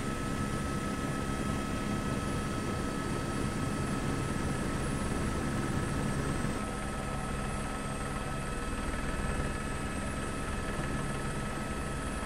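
Steady helicopter noise: a constant turbine whine over rotor rumble, unchanging in pitch, with a slight shift in tone about six and a half seconds in.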